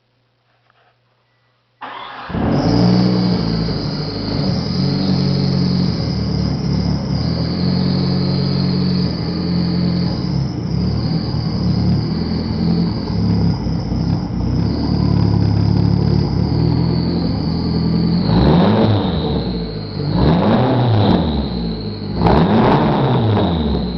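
1995 Eagle Talon TSi's turbocharged 4G63 four-cylinder catches about two seconds in and runs with an uneven, lumpy rough idle. Near the end it is revved up and down three times. The owner says it acts as if it has jumped timing after new timing and balance shaft belts, and suspects a bad ECU.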